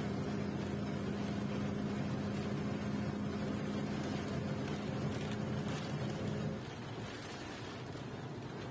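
Bus heard from inside the cabin while travelling: a steady engine hum over road rumble. About six and a half seconds in the hum stops and the level drops, leaving a quieter rumble.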